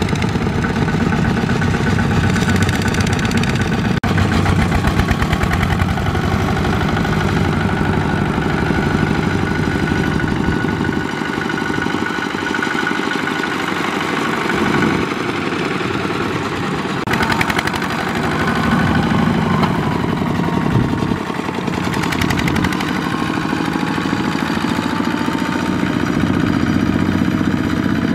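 Single-cylinder diesel engine of a Kubota RT120 two-wheel power tiller running steadily, with a rapid, even firing beat.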